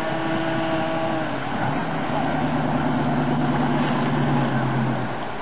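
An engine running steadily over a wash of wind and water noise, its note dropping to a lower pitch about a second and a half in.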